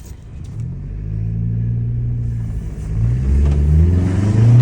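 Honda Civic Si's turbocharged engine pulling away under throttle, breathing through a newly fitted Cobra PRL cold air intake. A hiss of intake and turbo air comes in about two seconds in, and the engine note climbs in pitch and gets louder towards the end.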